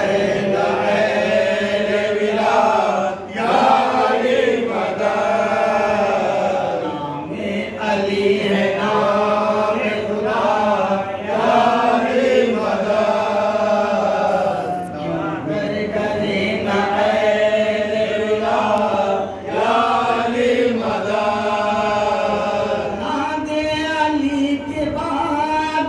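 Men's voices chanting an Islamic devotional recitation in a sustained, wavering melodic line, broken by short pauses for breath between phrases.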